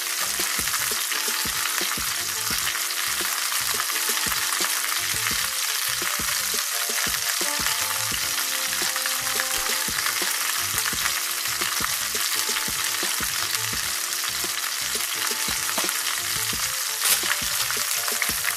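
Chicken leg quarters frying in a nonstick skillet: a steady hissing sizzle with constant small crackles and pops. One sharp tap stands out near the end.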